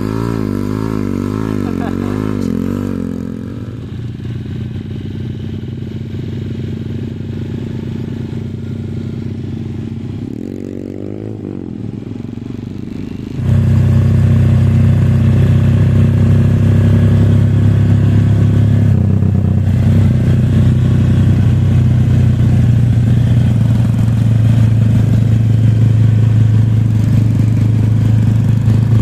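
Small dirt-bike engine running, its pitch wavering for the first few seconds, revving up about ten seconds in, then running louder at a steady speed for the second half.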